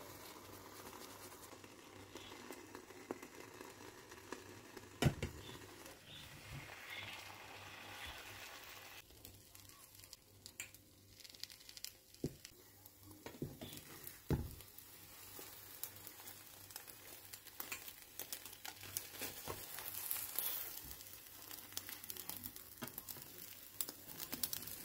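Beaten eggs sizzling as they fry in a nonstick frying pan, with small clicks and two sharp knocks, the loudest about five seconds in and another about fourteen seconds in.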